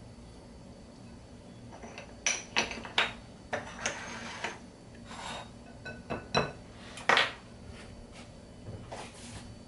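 Kitchen utensils and dishes clinking and knocking, a dozen or so sharp clinks in irregular succession, some briefly ringing, starting about two seconds in.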